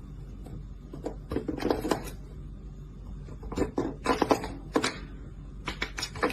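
Clusters of quick sharp taps or clicks, several in a row, coming in four short bursts over a low steady background.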